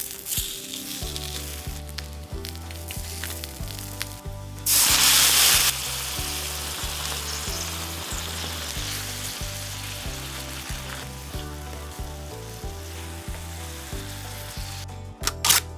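Food frying in a hot pan, sizzling steadily, with a much louder burst lasting about a second about five seconds in and a couple of sharp clicks near the end. Background music plays underneath.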